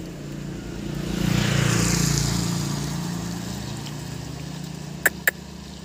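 A motor vehicle passing on the wet road, its engine hum and tyre hiss swelling about a second in and then slowly fading away. Two short clicks come near the end.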